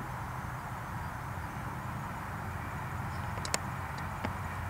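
Steady low hum under a faint hiss, with a couple of small sharp clicks about three and a half and four seconds in.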